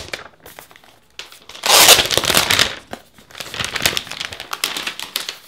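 Thin clear plastic wrap being ripped off a new laptop and crinkled in the hands: a loud tearing rush about a second and a half in, then irregular crackling crinkles.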